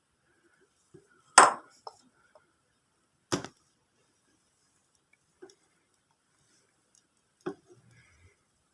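Sharp clicks and knocks of hand tools being handled while working on motorcycle wiring: four distinct strikes a couple of seconds apart, the first the loudest, with faint ticks in between.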